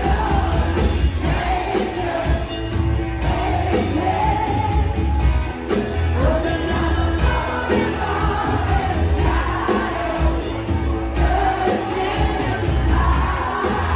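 Live band playing an upbeat dance song, a lead vocalist singing over strong bass and a steady beat.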